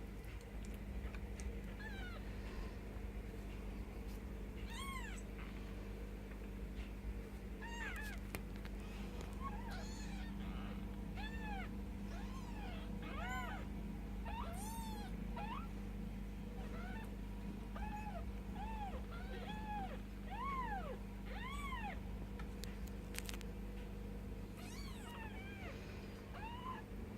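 Ten-day-old Bengal kittens mewing over and over: many short, high calls that rise and fall, sometimes overlapping, over a steady low hum.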